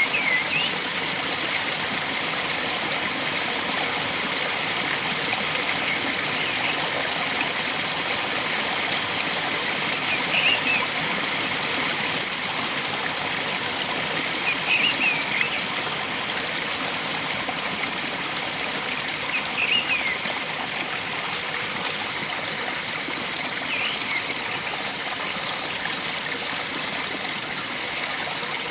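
Steady rush of flowing water in a stream, with short bird calls about every four to five seconds.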